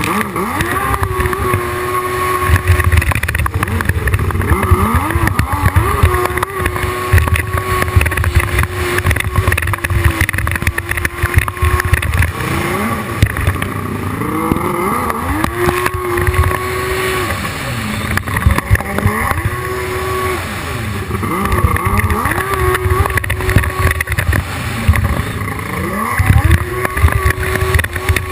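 Hydrospace 1100 racing jet ski engine running at high revs. Its pitch holds steady, then drops and climbs back several times as the throttle is eased off and reopened, over a heavy low rumble.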